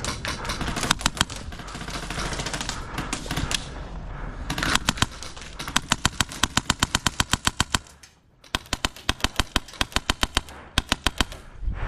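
Airsoft guns firing. Scattered shots at first, then long rapid strings at about ten shots a second, with a brief pause about eight seconds in.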